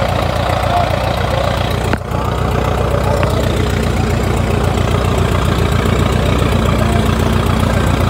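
International Harvester 8-16 Junior tractor's four-cylinder engine running steadily with an even, rapid beat, belted to a Baker fan for a load run.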